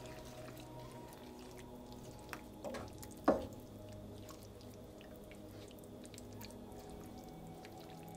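Thick tomato-chile salsa simmering in a frying pan, bubbling with many small pops and sputters, with one louder scrape or knock about three seconds in.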